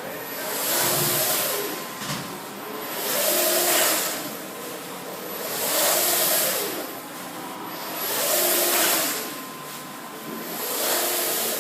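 MicroJet SP3208 BullDozer wide-format inkjet printer printing in two-pass mode, its print-head carriage sweeping back and forth. The motor noise swells with each pass, about one every two and a half seconds, with a faint pitch that rises and falls.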